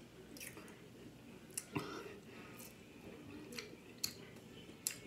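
Faint, sharp clicks and taps from a black plastic fork and plastic takeout container being handled, about seven spread irregularly, over a low background of faint TV voices.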